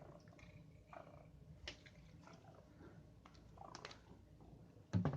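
Domestic cat purring steadily, with scattered small clicks and taps as it plays with and bites at a bath stopper. A louder knock comes near the end.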